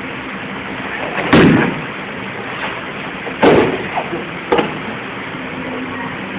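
Aikido breakfalls: three heavy thuds of a partner landing on the mat after breath throws, about a second in, at the middle and a sharper one a second later, over a steady background hiss.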